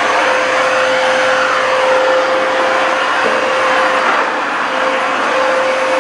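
BISSELL PowerEdge Pet 81L2A corded stick vacuum running at full speed: a steady rush of air with a constant whine from the motor.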